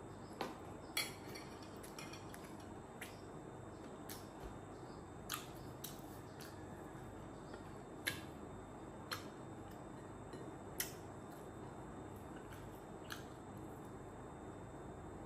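Quiet eating by hand: scattered light clicks and smacks, from fingers on a ceramic plate and from chewing, spaced irregularly a second or more apart over a faint steady room noise.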